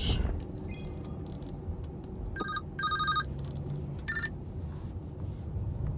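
Three short electronic beeps about halfway through, each a chord of steady tones, the middle one longest, over the low rumble of the car cabin.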